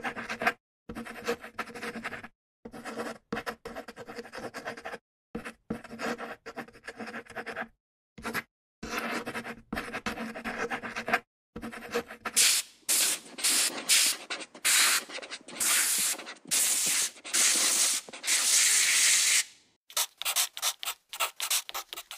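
Drawing strokes scratching and rubbing on sketchbook paper, in short bursts cut apart by brief silences. About halfway through the strokes turn louder and hissier, like broad rubbing on the page.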